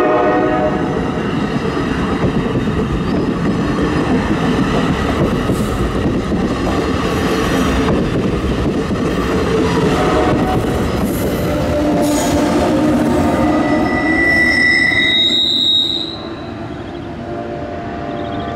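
NJ Transit bilevel commuter train passing at speed, its wheels running and clattering over the rail joints and the crossing in a steady loud rush. A horn tone fades out just after the start, a high steady whine rises near the end as the electric locomotive pushing at the rear goes by, and the noise then drops away suddenly as the last of the train passes.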